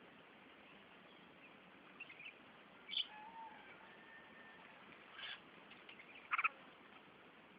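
Small birds chirping: a few short, separate chirps about two, three, five and six seconds in, over a steady faint hiss.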